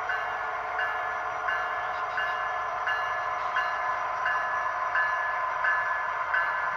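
A model railroad's electronic bell ringing steadily, about three strokes every two seconds, over the running noise of model trains on the track.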